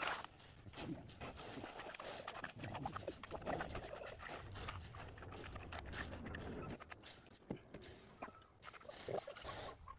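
Hand float and steel trowel scraping and slapping across wet concrete in short, irregular strokes, faint. A low background rumble stops about seven seconds in.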